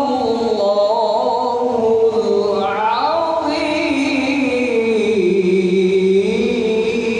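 A man reciting the Quran in the melodic qari style, one unbroken phrase of long drawn-out notes that slide slowly downward and lift again near the end, sung into a microphone.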